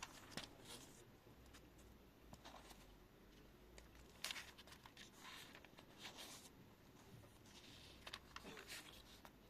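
Near silence, with a few faint paper rustles and soft taps as a thin-paged Bible is handled.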